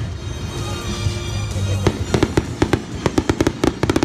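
Aerial fireworks display: a rapid run of sharp cracks and bangs starts about halfway through and keeps going, from several shells bursting at once.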